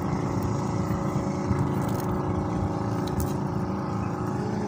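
Small boat engine running steadily with an even drone.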